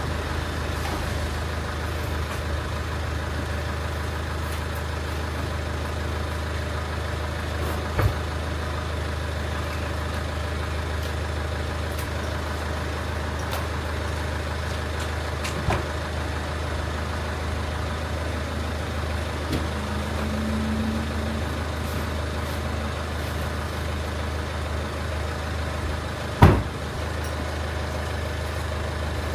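Steady low hum of an idling engine, with three sharp knocks spread through, the last and loudest near the end.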